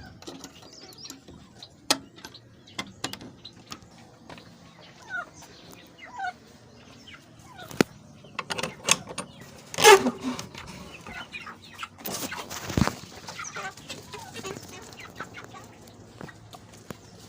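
Young poultry chicks chirping while feeding, among scattered sharp clicks and taps. A louder falling call comes about ten seconds in, and a short rustling burst follows a couple of seconds later.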